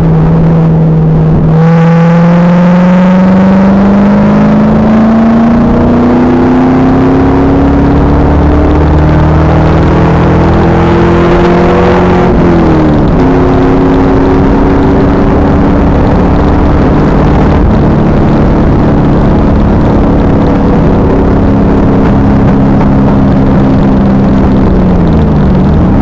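Pontiac Trans Am Firehawk's LS1 V8 under throttle, heard from the car through a badly overloaded camera microphone. The revs climb steadily for about ten seconds, drop sharply at an upshift about halfway through, then run at a slowly rising pitch. Near the end they fall and pick up again.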